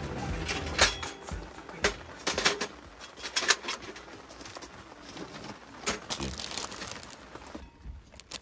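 Scattered sharp clicks and knocks, with a little crinkling, from kitchenware and food packaging being handled while a meal is prepared.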